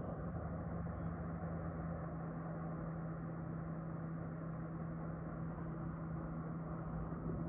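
Steady blowing hiss with a low held hum, typical of a hot air rework station running while a power IC is lifted off a phone motherboard.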